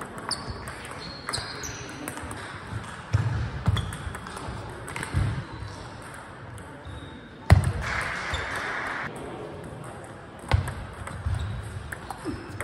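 Table tennis ball clicking against the bats and the table in rallies, sharp knocks at irregular spacing with echo from the large hall, the loudest about seven and a half seconds in. Chatter and the ball sounds of other tables run beneath.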